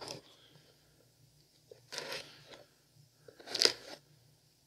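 Packaging being torn and crumpled by hand as a parcel is opened, in three short bursts.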